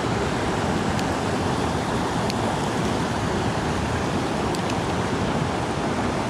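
Steady rush of a small mountain creek running over rocks and a little cascade, with a few faint clicks about one, two and four and a half seconds in.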